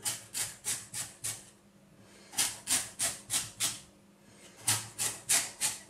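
Kitchen knife slicing into a raw sweet potato on a wooden chopping board, in three runs of quick sawing strokes with short pauses between them.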